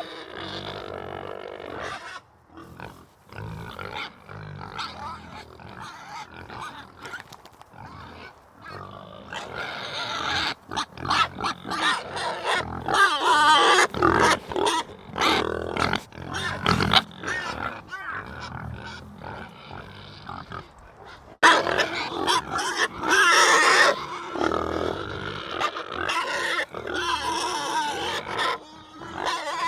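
Animal calls, many short calls one after another, louder from about ten seconds in, with a sudden louder stretch starting about 21 seconds in.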